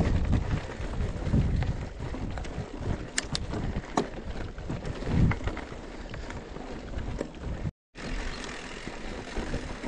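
Mountain bike being ridden along a dirt track: tyre noise on the gravel with scattered clicks and rattles from the bike, over wind rumbling on the microphone. The sound cuts out for a moment about eight seconds in.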